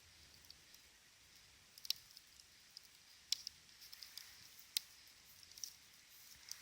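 Small wood campfire crackling quietly, with scattered light ticks and three sharp pops about a second and a half apart.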